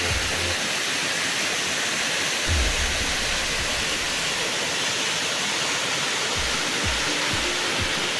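Steady, continuous rush of a waterfall, with a few low thumps.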